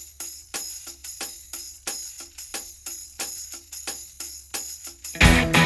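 Background music: a light, jingly percussion beat of about three hits a second, then a full rock band comes in loudly near the end.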